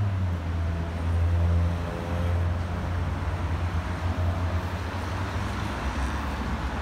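City street traffic: a steady low rumble of passing cars and vehicles.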